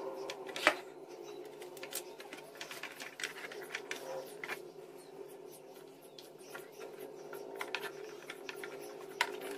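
Hand screwdriver driving the mounting screws, with washers, back into a juicer motor that sits on rubber packing: scattered small clicks and scrapes of metal and plastic, with one louder knock about a second in, over a faint steady hum.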